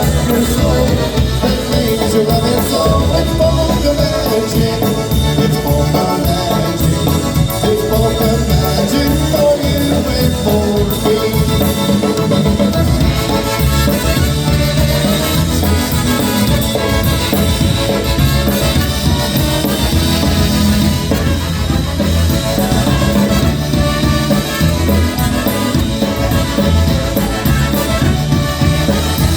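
Live polka band playing an instrumental passage of a song, with a steady beat under the melody.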